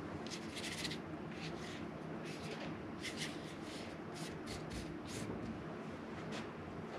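Paintbrush loaded with thick acrylic paint scraping and dabbing across the painting's surface in short strokes, about a dozen of them, over a faint steady hum.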